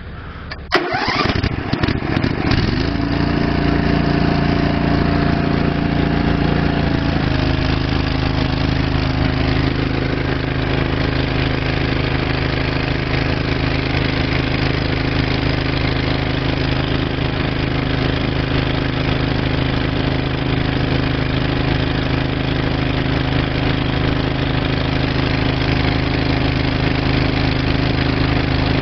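Honda-engined hydraulic power pack starting about a second in, then running steadily. Its pitch shifts once around seven seconds in before it settles into a steady run.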